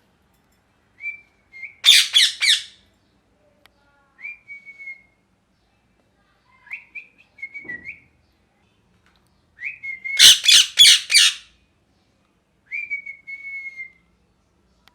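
Ringneck parakeet calling: short whistled notes that flick up and then hold, repeated every few seconds. Twice, about two seconds in and again around ten seconds, it gives a loud harsh screech of about four quick squawks.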